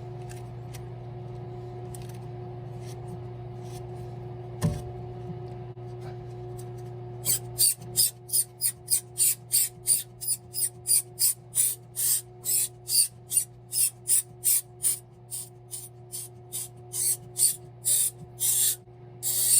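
Bidet water hose being screwed onto its threaded adapter by hand: after a quiet start with a single click, a long run of short rasping scrapes, about two a second, as the coupling is twisted tight. A steady low hum runs underneath.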